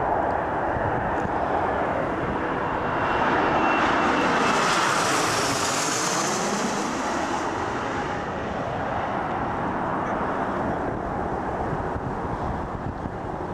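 Jet airliner on landing approach passing low overhead: a loud steady rush of engine noise that builds to a peak with a bright hiss about five to seven seconds in as it goes directly over, with a sweeping shift in tone, then fades as it moves away toward the runway.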